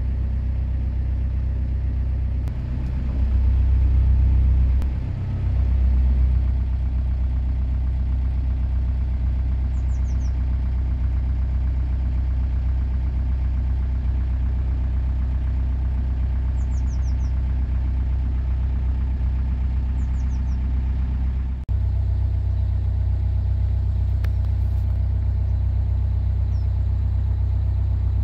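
Steady low engine rumble, swelling for a few seconds early on and changing slightly about twenty seconds in. There are a few faint high bird chirps over it.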